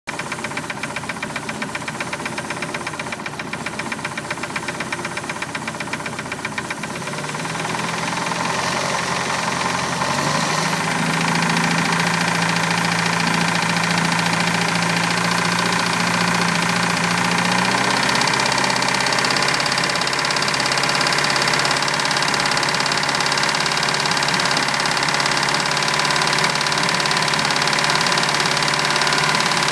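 1987 MerCruiser 3.0 four-cylinder marine engine running with a knock. It idles with a rapid, even pulsing for about the first seven seconds, then is run up to higher revs and held there.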